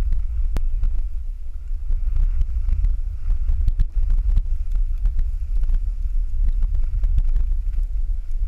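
Wind buffeting a GoPro action camera's microphone as the wearer skis downhill: a steady, deep, gusting rumble.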